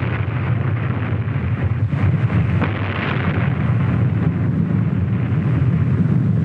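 Atomic bomb test detonation on an old film soundtrack: a continuous, dense low rumble with a couple of sharper cracks about two seconds in.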